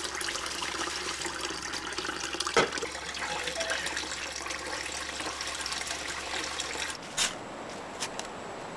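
Tap water running into a sink while dishes are washed, with small clinks and one sharper knock of a plate about two and a half seconds in. About seven seconds in the water stops and a couple of short knocks follow, a spade cutting into soil.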